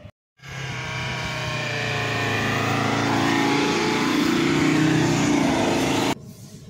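Off-road SUV engine revving hard under load. It starts abruptly about half a second in, its pitch wavers and climbs as it grows louder, and it cuts off suddenly near the end.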